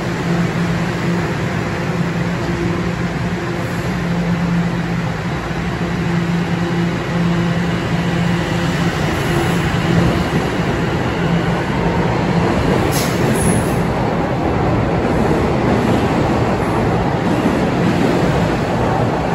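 Toronto Rocket subway train standing at the platform with a low pulsing hum, then pulling out of the station. Its running noise builds steadily as it gathers speed and passes close by.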